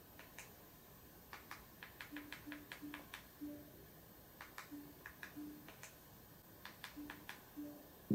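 Irregular clicking of remote-control buttons pressed in quick runs while stepping through a C900 mini projector's settings menu, some presses answered by a short low beep from the projector's button tone.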